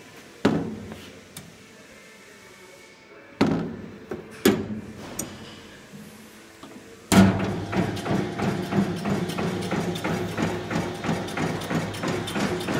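A few sharp metal knocks from handling an overhauled Treif 91/1 meat slicer, then about seven seconds in the slicer is switched on and runs with a steady electric-motor hum and an even rhythmic clatter of its mechanism.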